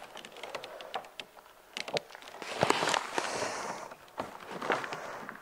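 Scattered light taps, knocks and rustling of a person squatting while holding a plastic-wrapped case of water bottles, with a short hissing rustle about three seconds in.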